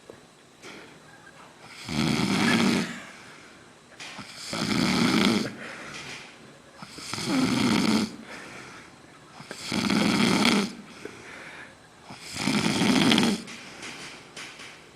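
A man snoring loudly in a heavy, alcohol-sodden sleep: five loud snores about two and a half seconds apart, each lasting about a second, with quieter breathing between them.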